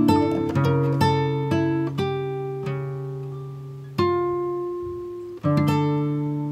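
Background music on acoustic guitar: plucked notes and strummed chords that ring and fade, with new chords struck about a second in, about four seconds in and again near the end.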